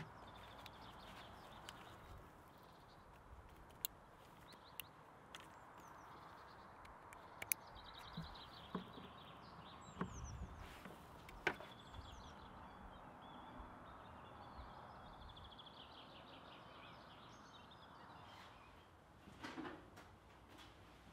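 Faint songbirds singing repeated rapid trills, with a few sharp clicks and knocks from cables and a connector being handled and plugged into a portable power station's charging port.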